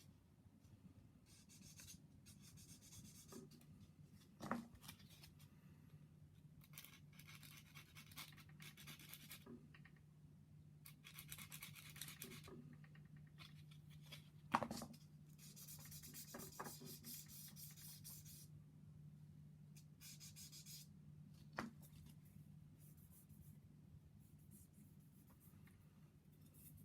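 Faint, intermittent scratchy strokes of a sanding stick rubbing a plastic model kit part, in short runs, with a few sharp clicks as tools or parts are set down; a faint steady low hum underneath.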